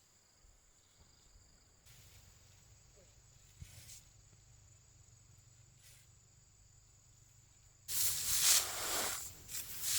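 Quiet outdoor background, then about eight seconds in a sudden loud rustling and scraping that goes on unevenly to the end.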